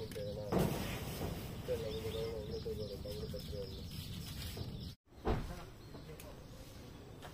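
Outdoor background noise with a long, wavering call in the middle and faint bird chirps. The sound drops out abruptly about five seconds in, then a short bump follows and the background continues quieter.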